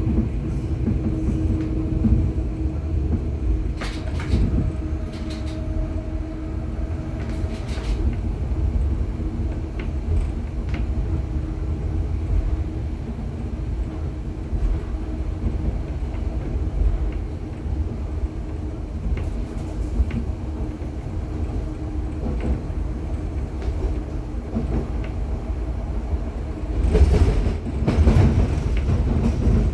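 Interior of a Budapest H5 HÉV suburban train car running along the line: a steady low rumble of wheels and running gear with a constant hum and occasional clicks. Two louder rushing surges come near the end.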